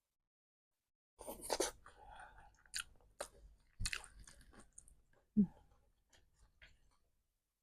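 Close-miked mouth sounds of a person biting and chewing momo dumplings: a run of wet smacks and sharp clicks starting about a second in, loudest near the start, then thinning out.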